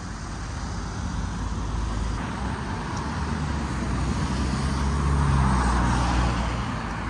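Motor vehicle running with engine rumble and road noise, swelling to a peak about five seconds in and then easing off.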